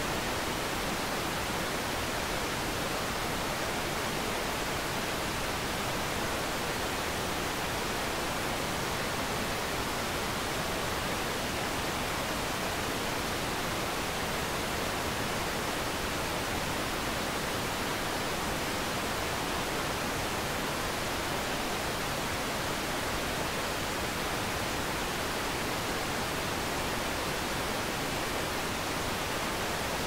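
Television static: a steady, even hiss that holds without a break.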